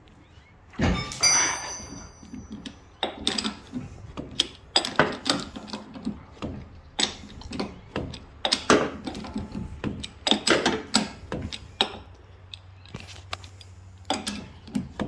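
Metal hand tools clanking and knocking on a car's strut: a loud ringing clank about a second in, then irregular knocks and clicks as the strut's top stud nut is worked loose.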